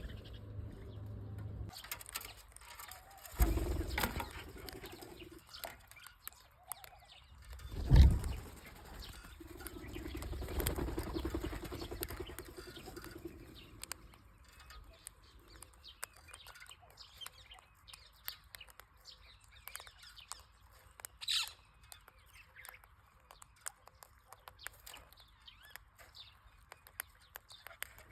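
Birds chirping amid many short clicks and scratchy knocks, with a loud thump about eight seconds in.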